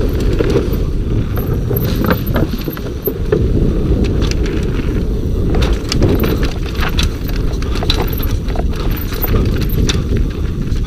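Scott Gambler downhill mountain bike ridden fast over roots and stones: tyres rumbling on the dirt, with the bike rattling and clattering and sharp knocks from impacts, many times over a steady low rumble.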